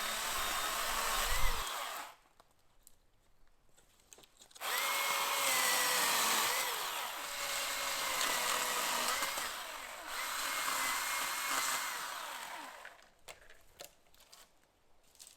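Chainsaw limbing branches off a felled tree: it runs for about two seconds, stops, then runs again for about eight seconds, its pitch dipping now and then as it cuts into the wood. A few light knocks follow near the end.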